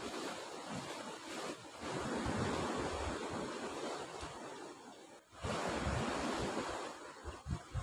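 Sea surf washing and breaking against the rocky shore, with wind buffeting the microphone in uneven low rumbles.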